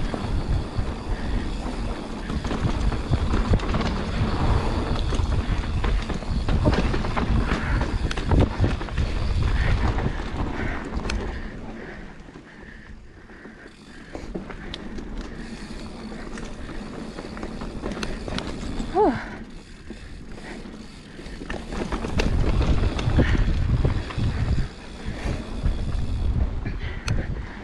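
Mountain bike rolling fast down a dirt flow trail: tyre roar with the chain and frame rattling over bumps and wind on the microphone. It eases off for a stretch in the middle and picks up hard again near the end, with a brief squeak about two-thirds through.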